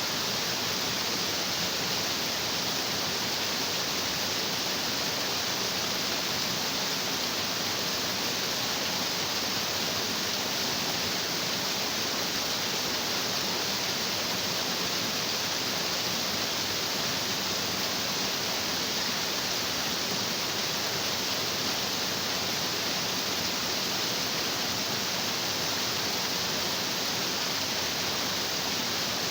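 Stream water rushing over rocks: a steady, even rush that does not change.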